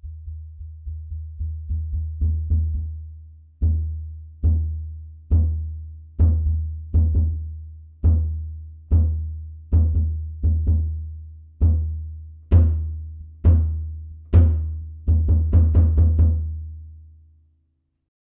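Zebra Drums free-floating walnut bass drum struck by a kick pedal with a soft, fluffy-headed beater: a run of resonant kicks, each leaving a long low ring. Quiet, quick strokes at first, then single strokes about a second apart getting louder, a fast flurry of kicks near the end, and a last ring-out that dies away.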